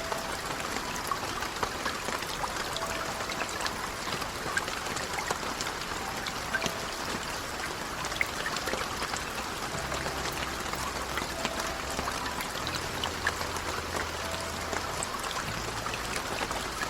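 Steady rain falling, a continuous hiss dotted with many separate drop ticks.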